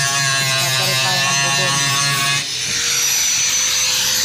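A small electric power tool's motor buzzing steadily. About two and a half seconds in, the sound changes to a thinner, higher steady whine.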